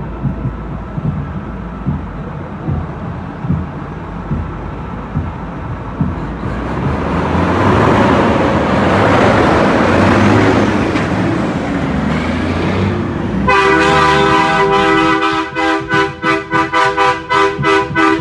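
Semi-truck air horn with several pitches: one long held blast, then quick repeated blasts, about two or three a second. It comes after a loud rushing noise that swells over the truck's low engine rumble.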